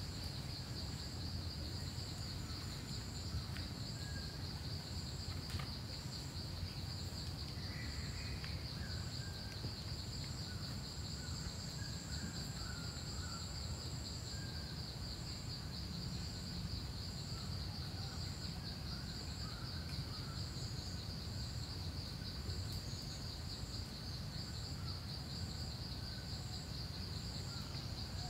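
Forest ambience: insects keep up a steady, fast-pulsing high trill, while birds give scattered short chirps. A low, even rumble of background noise runs underneath.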